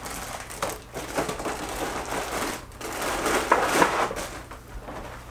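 Clear plastic bag of cereal crinkling and rustling as it is handled, in irregular crackles.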